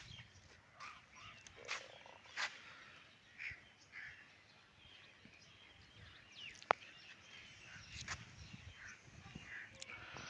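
Birds calling here and there with short chirps over faint outdoor background noise. A single sharp click comes about two-thirds of the way through.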